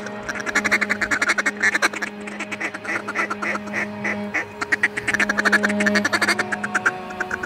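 A duck call blown in quick runs of loud mallard-style quacks, over a steady low drone.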